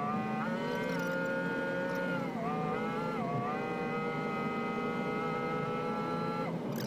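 V10 petrol engine of a motorhome running at a steady road speed, a steady drone that dips briefly in pitch a few times and falls sharply near the end.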